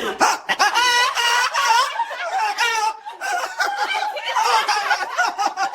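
Several women laughing hard in high-pitched peals of laughter, with a short lull about three seconds in.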